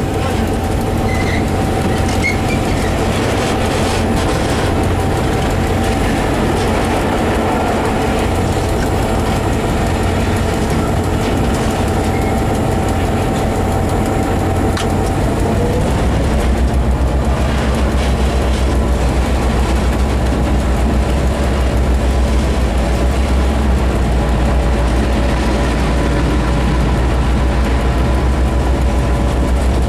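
Diesel locomotive running, heard from inside its cab as it rolls along yard track, with a thin steady whine over the engine. About halfway through the whine stops, and the engine note drops lower and gets a little louder.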